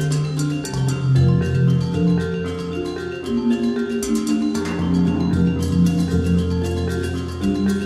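Background music: a melody of pitched notes over a sustained bass line, with light, regular percussion taps.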